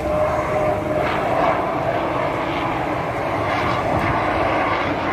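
Military aircraft flying past overhead during an air display, its engine noise a loud, steady rush.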